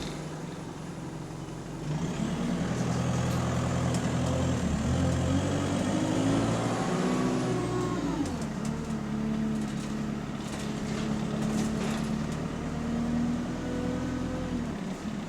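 Diesel engine of a double-decker bus heard from the passenger saloon, accelerating under load about two seconds in, rising in pitch for several seconds, then dropping sharply around eight seconds in as the gearbox changes up, then running steadily at a lower pitch.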